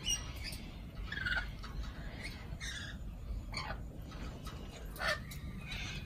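Rainbow lorikeets calling: about half a dozen short, high calls scattered through the few seconds, over a low steady background rumble.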